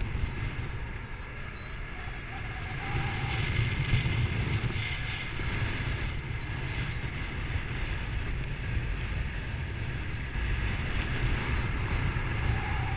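Wind buffeting the camera microphone in paraglider flight. Over it, a flight variometer beeps in quick short pulses during the first second or so and again near the end, signalling that the glider is climbing in lift.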